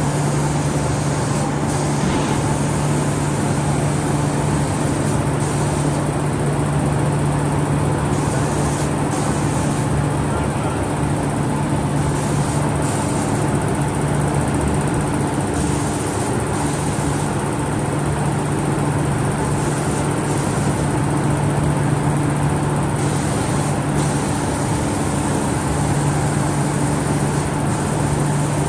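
Automatic CNC door spray painting machine running: a steady motor hum with a hiss that cuts in and out every second or two.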